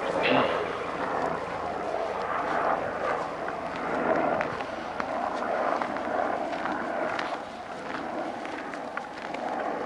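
Footsteps crunching along a gravel path, over a steady rush of outdoor background noise, with scattered small clicks.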